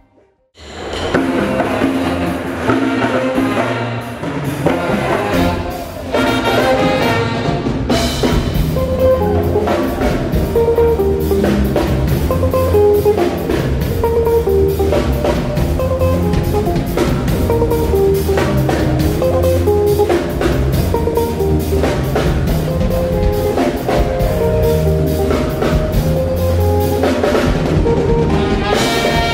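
A live band starts playing about half a second in: drum kit, bass guitar and electric guitar in a steady groove.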